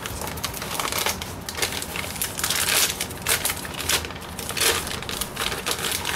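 Packaging crinkling and rustling in irregular crackly bursts as a new rifle stock is handled and unwrapped.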